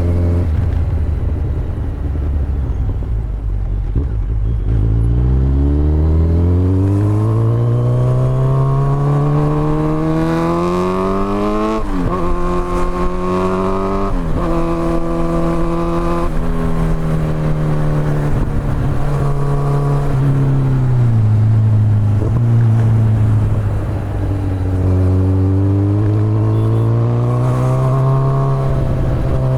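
Kawasaki Z900's inline-four engine through an Akrapovic exhaust, pulling up from low revs with a long rising pitch. It drops sharply at two quick upshifts about twelve and fourteen seconds in, holds steady, and falls as the throttle eases. It then climbs again under acceleration near the end.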